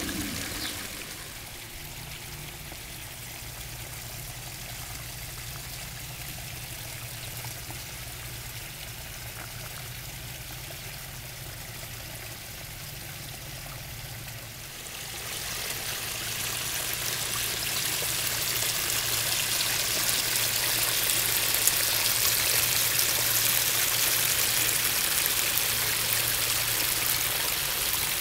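Water of a three-tier backyard pond waterfall splashing and trickling steadily into the pond, getting louder about halfway through.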